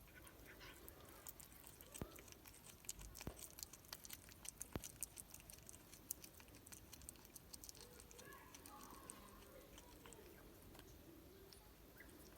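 A cat chewing a chunk of meat: a run of faint, quick clicks and smacks, busiest in the first half and thinning out later.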